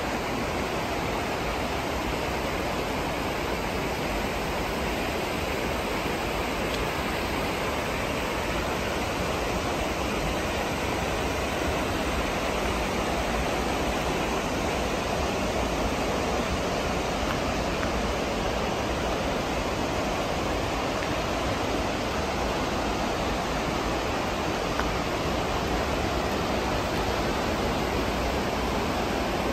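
Steady rush of a fast-flowing creek and waterfall.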